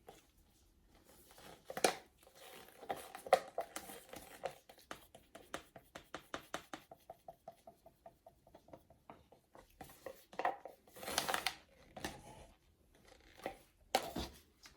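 Paint cups and bottles being handled while acrylic paint is layered into a pouring cup: a run of quick light taps, about four or five a second, with a few louder scraping rustles.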